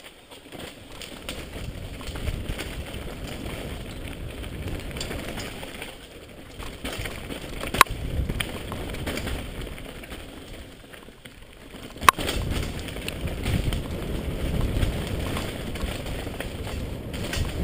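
Mountain bike riding fast down a dirt forest singletrack: a steady rumble of tyres and trail noise that swells and eases, with two sharp knocks about four seconds apart.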